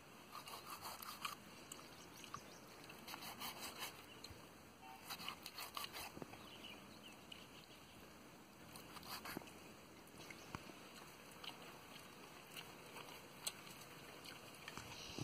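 Faint crisp crunching and clicking of a knife cutting through raw quail flesh and small bones, in scattered short clusters.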